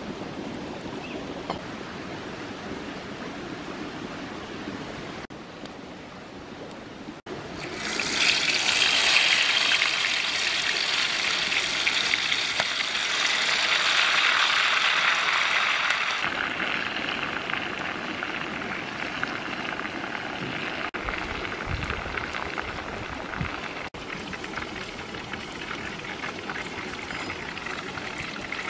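Chicken wings frying in hot oil in a pot over a wood fire: a steady sizzle that is loudest and brightest from about a third of the way in, easing to a quieter sizzle for the rest. The first few seconds hold only a lower, steady hiss.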